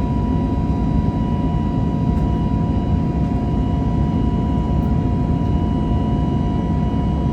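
Airbus A320neo cabin noise heard from inside the cabin: the engines running steadily, a dense rumble and hiss with a steady pair of whining tones over it.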